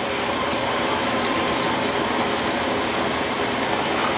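Wire whisk beating a butter sauce in a stainless steel saucepan, its wires scraping and clicking against the pan in a quick, steady rhythm as the butter is emulsified in.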